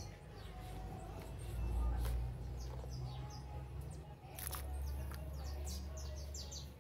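Small birds chirping in the background, in quick runs of short falling notes, over a low rumble, with a couple of light knocks as the soap mix is spooned into the plastic basin of water.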